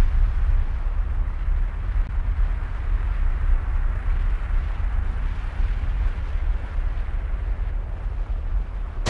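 A loud, steady low rumble with a rushing hiss above it, flickering in level without any distinct hits.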